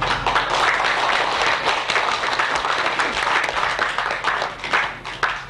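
A congregation applauding: dense clapping that starts at once and thins out near the end.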